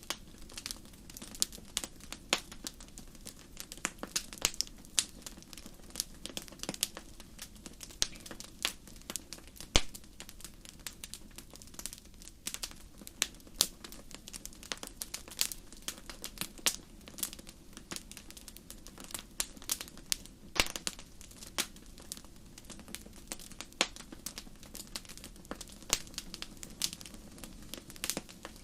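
Wood fire crackling in a fireplace: a steady low hiss with many irregular sharp pops and snaps, several a second.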